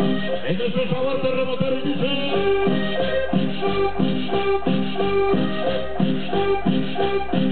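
Accordion cumbia played loud over a sonidero sound system, with shaker percussion and a steady bass beat.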